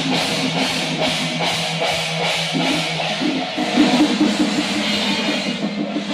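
Music with drums and cymbals beating steadily under a sustained melodic line.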